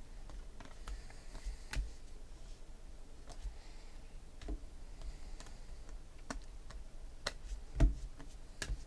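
Panini Prizm basketball trading cards being flipped through by hand, one card at a time, giving irregular light clicks and flicks as each card slides off the stack; one stronger snap near the end.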